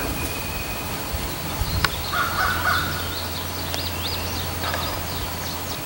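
Wild birds calling: a lower call about two seconds in, then a run of quick, high rising notes. A single sharp click comes just before the first call.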